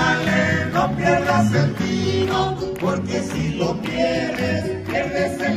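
A group sings with a live folk band of harp and guitars, and hands clap along.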